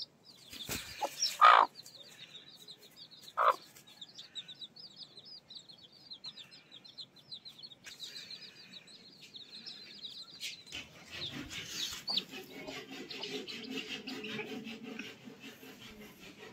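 Newly hatched chicks peeping in a rapid run of short, high chirps, while the mother hen gives two loud clucks in the first few seconds. The peeping stops about two-thirds of the way through, and a rustling noise takes over.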